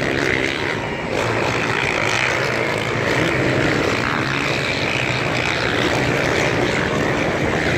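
Motocross bikes riding the track, several engines at high revs overlapping in a continuous, wavering drone.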